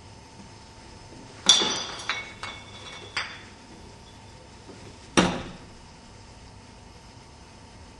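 Hard objects knocking and clinking. There is a sharp knock that rings briefly about one and a half seconds in, three lighter knocks over the next two seconds, and a last sharp knock a little after five seconds.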